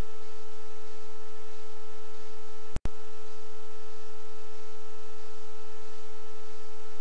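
Steady electrical hum: one unchanging mid-pitched tone with fainter higher tones over a hiss, briefly cutting out about three seconds in.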